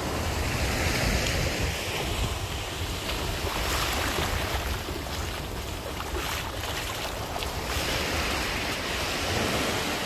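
Surf breaking and washing up a sandy beach, swelling and easing several times, with wind buffeting the microphone as a low rumble.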